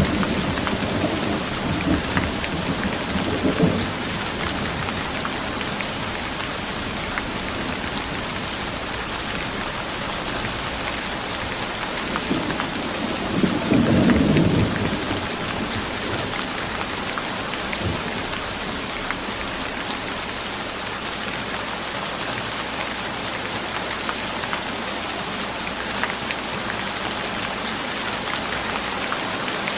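Steady heavy rain hiss, with thunder rumbling low twice: fading out over the first few seconds, and swelling again about halfway through.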